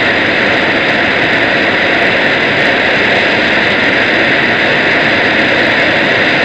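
Loud, steady hiss of noise on a shortwave radio broadcast, blanking out the programme, strongest in the upper-middle range; it cuts off abruptly near the end.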